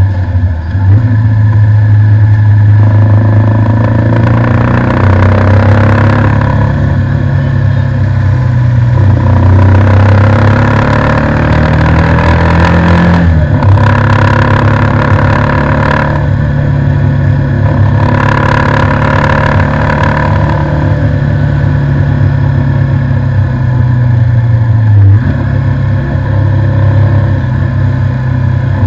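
Bajaj Avenger motorcycle's single-cylinder four-stroke engine running under way, its pitch climbing steadily as the bike accelerates, then dropping suddenly a little before halfway and again near the end. Bursts of hiss from wind and passing traffic come and go.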